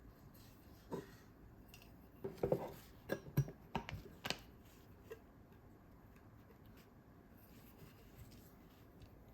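A run of small clicks, taps and knocks from objects being handled, bunched between about one and five seconds in, with quiet room tone around them.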